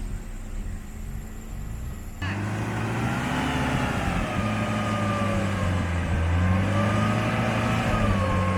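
Off-road 4x4 engine running under load, with revs rising and falling and a whine that follows the engine speed; it gets suddenly louder about two seconds in.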